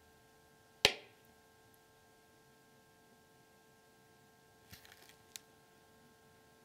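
Quiet room with a faint steady hum. One sharp click comes about a second in and dies away quickly. A few fainter clicks and a brief rustle follow near five seconds.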